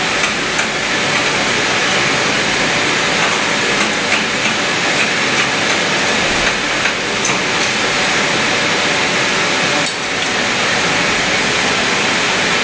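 Electric arc welding: the arc gives a steady, loud crackling hiss that dips briefly about ten seconds in.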